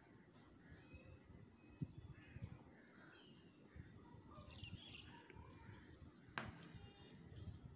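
Near silence with faint distant bird calls in the background, and two sharp clicks, about two seconds in and again near the end.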